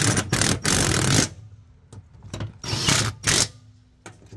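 Cordless drill running in bursts as it drives a bolt into a mower-deck spindle housing: one burst of about a second, then two short bursts near three seconds in. The bolt is the wrong thread and strips its hole.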